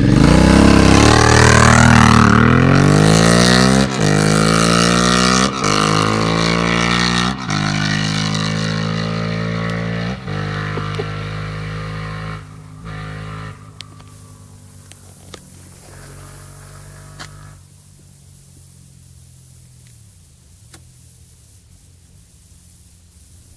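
Aprilia Shiver 750 V-twin motorcycle accelerating away hard. The engine note climbs in each gear and drops at several quick upshifts. It fades into the distance until only faint background is left.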